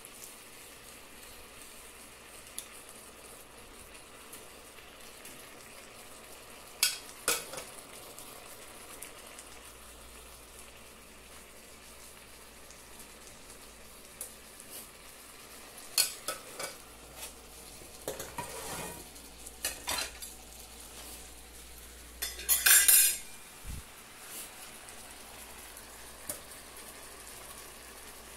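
Chicken breasts sizzling steadily as they fry in a skillet. Metal tongs click and scrape against the pan and dish now and then, loudest about three quarters of the way through.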